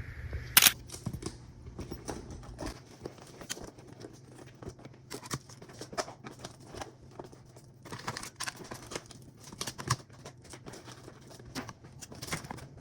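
Rustling and small irregular clicks of things being handled close to the microphone, with one sharp click about half a second in.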